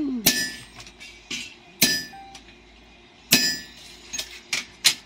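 Sledgehammer and hand hammer striking steel on an anvil while forging a knife blade. Three heavy ringing blows come about a second and a half apart, with lighter taps between them and a quicker run of taps near the end.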